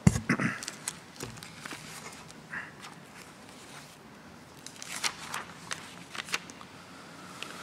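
A heavy book and papers handled on a lectern close to its microphone: a sharp knock at the start and a few softer thumps, then a cluster of small clicks and rustles about five to six seconds in.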